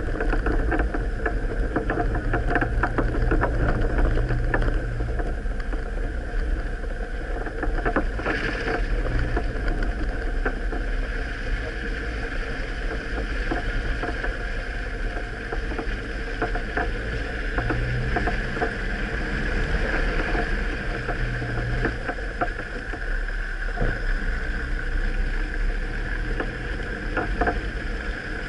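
A vehicle's engine running steadily as it drives along a rough dirt track, with scattered knocks and rattles from the bumps and some wind on the microphone.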